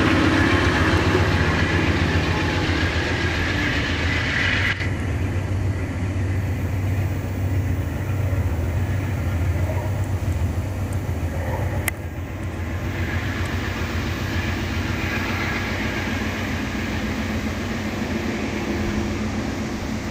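Amtrak Superliner passenger cars rolling past, their wheels running on the rails. About five seconds in the sound cuts abruptly to a duller, steady low rumble as the train is heard moving away, with a single sharp click about twelve seconds in.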